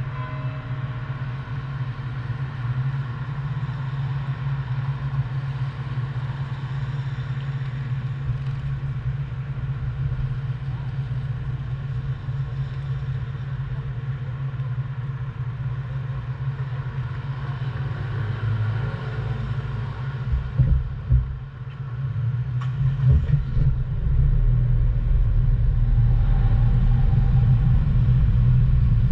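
Car driving along: steady road and engine rumble, which dips briefly and then grows louder and deeper over the last few seconds.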